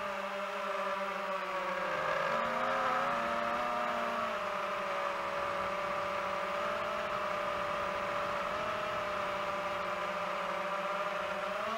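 DJI FPV drone's motors and propellers whining steadily, the pitch wavering up and down in the first few seconds and then holding even.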